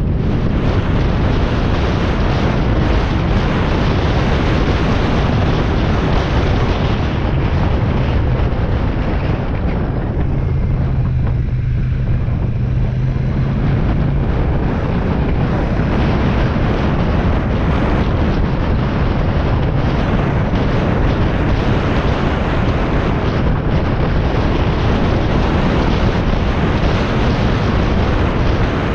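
Heavy wind buffeting on a helmet-mounted camera microphone at road speed on a Royal Enfield Shotgun 650, with the bike's 648 cc parallel-twin engine running underneath. About ten seconds in the wind noise eases for a few seconds and a steady low hum comes through.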